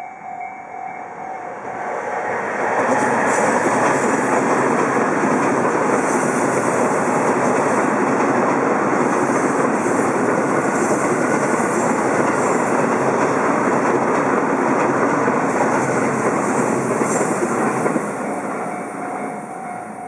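An electric commuter train passes over a level crossing. The steady rumble of wheels on rail builds about two seconds in, holds loud, and eases off near the end. The crossing's electronic warning alarm rings at the start and is heard again once the train has gone by.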